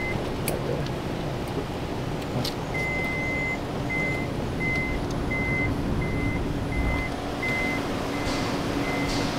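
A van's electronic warning beeper sounds one long beep about three seconds in, then keeps on with short, evenly spaced beeps, about one every 0.7 seconds. The beeps run over a steady low hum from the vehicle.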